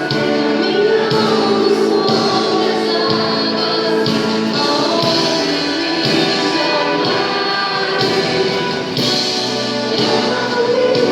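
A worship group singing a Christian praise song, several voices together over instrumental accompaniment with light percussion.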